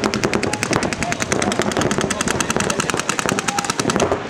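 Paintball markers firing in rapid streams, many sharp pops a second from several guns at once.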